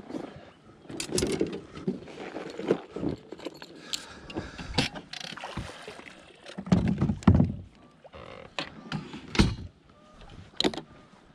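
Bow-mounted electric trolling motor being pulled up and stowed on its mount on an aluminium boat: irregular metal knocks and clunks, the loudest a little past halfway and again about two seconds later.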